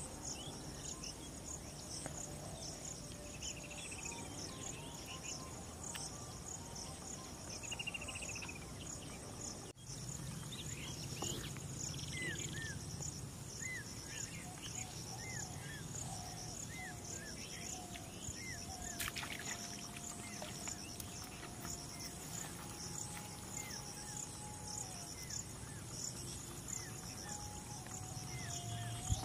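Insects chirping in a fast, even pulsing rhythm, with short higher chirps scattered through.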